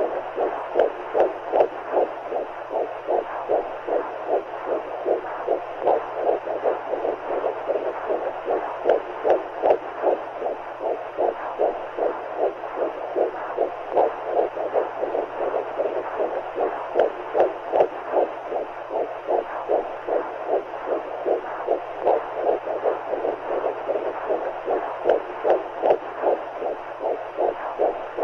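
Womb sound for soothing a baby: a muffled heartbeat pulsing steadily and rhythmically, each beat a soft whoosh, over a continuous rushing noise of amniotic fluid.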